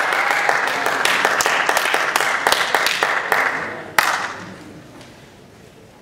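Audience applauding, a dense patter of claps that fades out about four seconds in, with one sharp knock as it ends.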